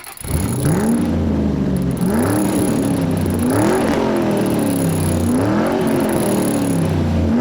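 The 5.7-litre Hemi V8 of a 2007 Dodge Ram revving several times over a steady idle, its pitch rising and falling with each blip.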